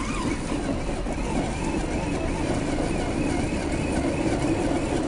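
Absima CR 3.4 Sherpa RC rock crawler's electric motor and geared drivetrain whining under throttle as it climbs a steep rock face. It sets off at the start with a steady running noise and a wavering higher whine.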